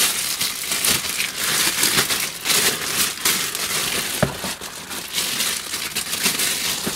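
Clear plastic packaging bag crinkling and rustling as it is pulled off a part being unwrapped, with a single light knock about four seconds in.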